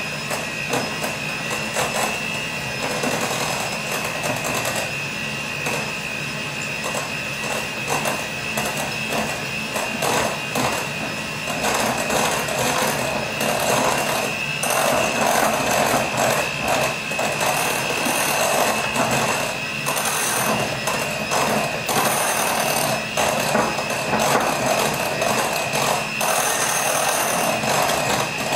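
Electric hand mixer running on low, its beaters whirring and rattling in a glass bowl as a first portion of the flour mixture is beaten into cake batter. A steady motor whine with constant clatter, growing a little louder about halfway through.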